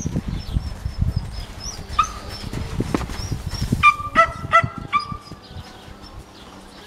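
A dog barking in short high yaps: one about two seconds in, then four in quick succession around four to five seconds, over low thuds from a horse's hooves cantering on sand.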